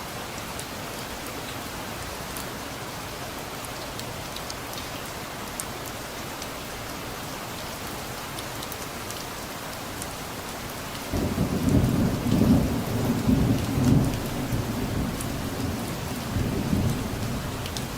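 Steady rain falling with scattered drip ticks, then a sudden low rumble of thunder about two-thirds of the way in that rolls on for several seconds.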